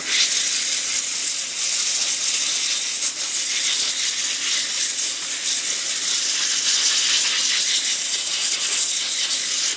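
Air from a vacuum cleaner's exhaust port blasting across a keyboard to blow out debris: a loud, steady rushing hiss that starts abruptly.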